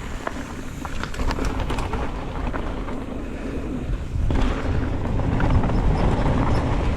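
Wind buffeting the microphone over the rumble of mountain bike tyres on a dirt trail, with scattered clicks. It gets louder about four seconds in.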